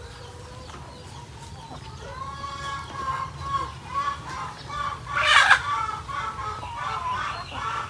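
A flock of layer hens clucking, with repeated calls that grow louder and busier from about two seconds in. One loud, harsh call comes about five seconds in.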